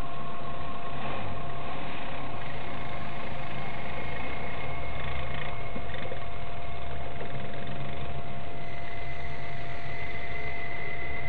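ATV engine running as the quad drives through a rocky creek, with water rushing and splashing around it. A steady high tone sits under the noise.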